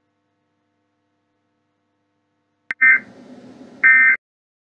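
Emergency Alert System end-of-message data bursts: after near silence, two short, loud bursts of shrill warbling digital tones about a second apart, signalling the end of the alert.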